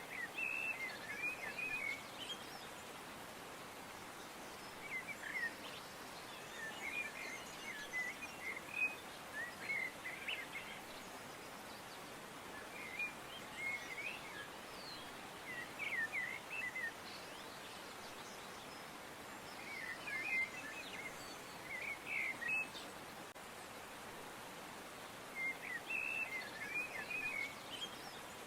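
Birds chirping in short bursts of quick notes every few seconds, over a steady background hiss.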